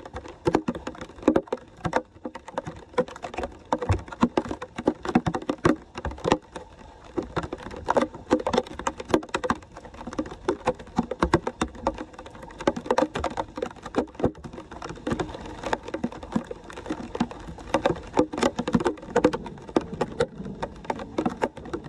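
Floodwater splashing and gurgling as it pours down through a partly cleared street storm-drain grate, a dense, irregular run of splashes.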